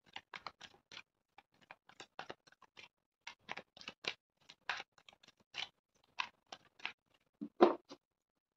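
Tarot deck being shuffled by hand: irregular soft card clicks and flicks, a few a second, with one louder thud near the end.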